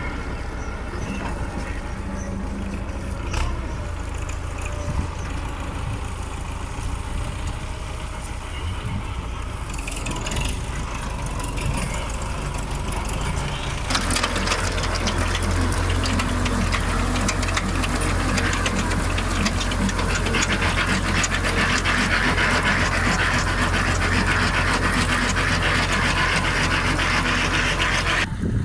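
Tractor engine running steadily under load. About halfway through, a louder, dense clattering rattle of machinery joins it and keeps on.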